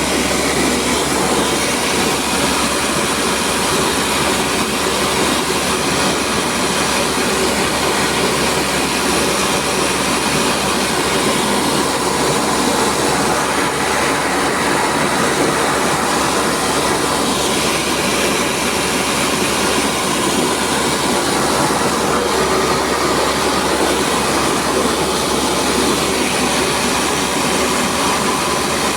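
Rice milling machine running, a loud, steady mechanical din.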